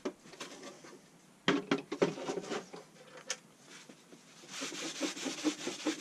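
Tools and their cases being handled: a few sharp knocks, then from about halfway on a rubbing, scraping sound with small knocks as sets are moved about.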